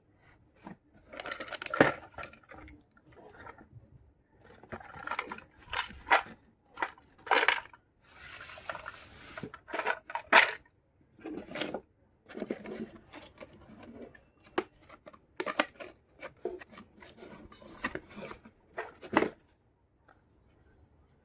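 Small plastic toy kitchen pieces being handled and set down: irregular light clicks and clatters, with a longer stretch of rustling about eight seconds in.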